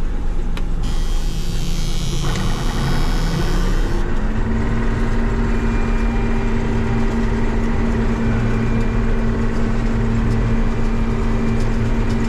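A John Deere combine heard from inside the cab while harvesting corn: its engine and machinery rise in pitch over the first few seconds as it comes up to speed, with a hiss for about three seconds near the start, then run steadily as the corn head takes in the stalks.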